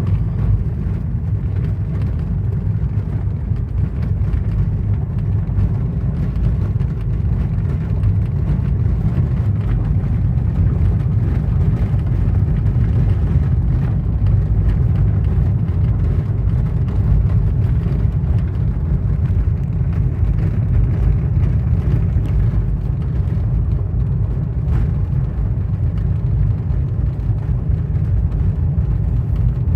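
Steady low rumble of a motor vehicle or heavy machine running, with no changes in pace.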